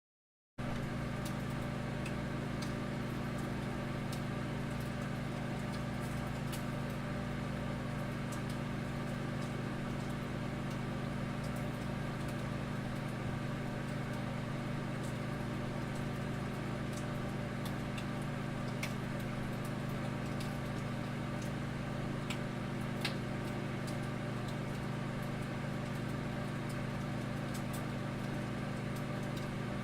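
Microwave oven running with bacon cooking inside: a steady hum that starts under a second in, with scattered small pops and crackles from the bacon.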